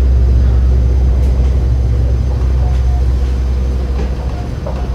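Palm Jumeirah Monorail car running, heard from inside the cabin: a steady, deep rumble with a light hiss of running noise over it, easing slightly in loudness near the end.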